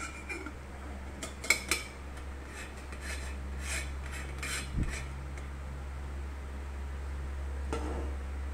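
Stainless-steel lid of a Hario V60 Drip Kettle Fit being fitted onto the kettle: sharp metal clinks, the loudest two about a second and a half in, then lighter clinks and scrapes and a dull knock near the middle.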